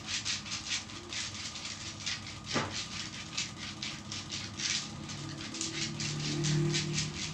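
Hands rubbing briskly back and forth over bare skin in a traditional massage, a regular swishing at about three to four strokes a second. A short falling tone comes about two and a half seconds in, and a low steady hum rises under the rubbing near the end.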